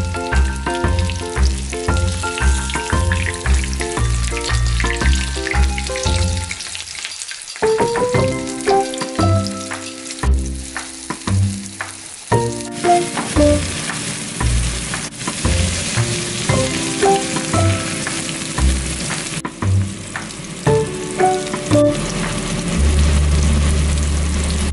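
Breadcrumb-coated chicken breast frying in a pan of hot oil, sizzling steadily under background music with a regular bass beat. The sizzle comes through more strongly in the second half, and the music drops out briefly about seven seconds in.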